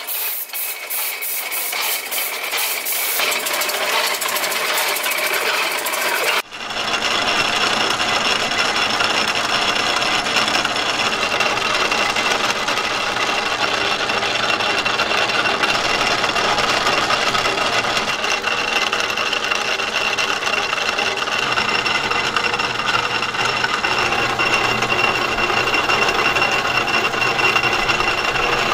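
Workshop machinery running: at first a rapid clicking that slows and fades, then, after a sudden break about six seconds in, a steady mechanical running noise with a high whine.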